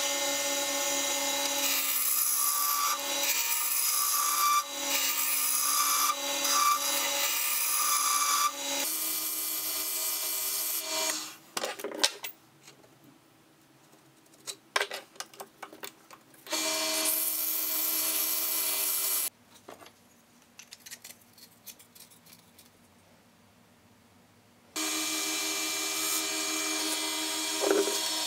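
Small wood lathe turning a mahogany axe handle: the motor runs with a steady hum while a turning tool cuts the spinning wood with a loud scraping hiss. The lathe stops about a third of the way in, giving way to quiet handling clicks. It runs again briefly, stops, then starts up again with cutting near the end.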